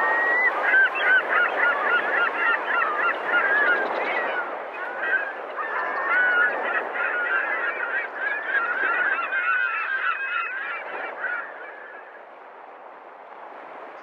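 A flock of birds calling over one another in a dense, continuous chorus of short honking calls, fading out near the end.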